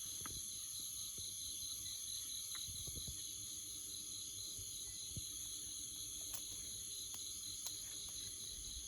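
Steady, high-pitched chorus of crickets and other jungle insects, with a few faint clicks and taps.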